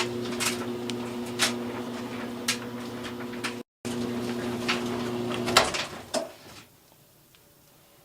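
Clothes dryer running with a steady motor hum and irregular knocks and clicks. About five and a half seconds in there is a sharp click, and the dryer winds down and stops.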